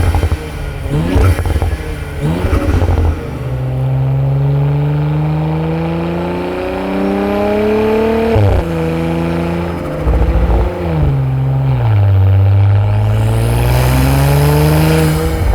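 Audi B9 S4/S5 turbocharged 3.0T V6 breathing through a cold air intake: a few short revs, then a long pull with the pitch climbing steadily, a sudden drop at a gear change about eight seconds in, two more quick drops, and another climbing pull near the end.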